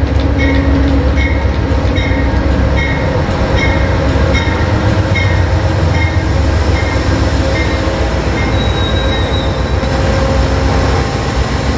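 Diesel-hauled CTrail Hartford Line commuter train pulling into a station and slowing, with a deep engine rumble and rolling wheels. A regular ringing click, about twice a second, spaces out as the train slows. A brief high squeal, typical of brakes, comes about three-quarters of the way in.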